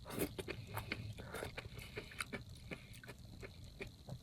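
Close-up chewing of crunchy jellyfish, a string of small irregular wet crunches and clicks.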